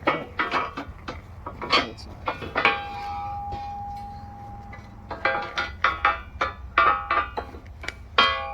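Steel sawmill parts clanking and being struck, metal on metal: a series of sharp clanks, one about three seconds in ringing on for nearly two seconds, then a quicker run of clanks and another ringing strike near the end.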